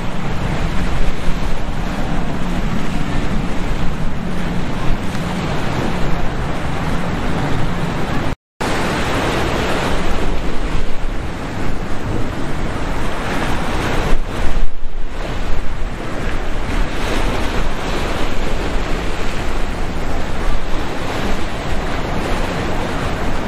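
Wind buffeting the microphone over the rush of waves and surf at the inlet, loud and steady. About eight and a half seconds in, the sound cuts out for a moment.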